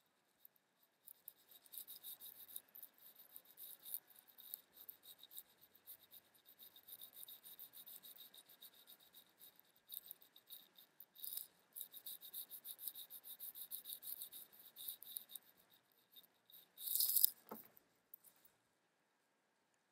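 Faint, rapid scratchy strokes of an eyeshadow brush sweeping in circles over the eyelid, close to the microphone, with a brief louder rub near the end.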